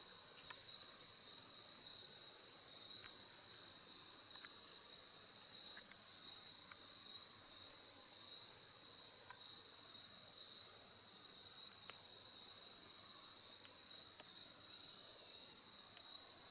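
Steady chorus of insects: several high, continuous trills layered at different pitches, with a few faint ticks.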